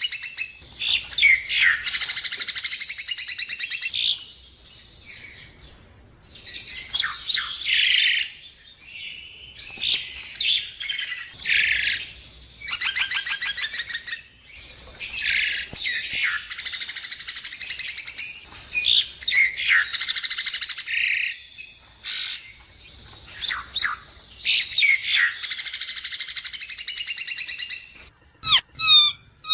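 Javan myna (jalak kebo) singing: a long, varied run of harsh chattering and squawky phrases with fast rattling trills and a few whistled notes, broken by short pauses. Near the end come sharper, higher whistled notes.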